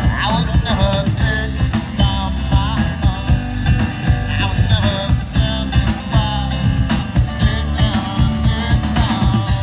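Live rock band playing amplified: electric guitars, acoustic guitar and drum kit keeping a steady beat.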